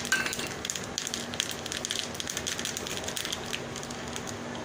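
Mustard seeds and urad dal sizzling in hot oil in a small pan, with a dense run of irregular pops and crackles. This is the tempering (thalippu) frying in oil that is hot enough to make the seeds splutter.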